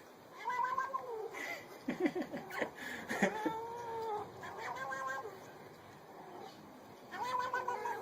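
Domestic cat meowing several times, in drawn-out calls that bend in pitch, with pauses between them.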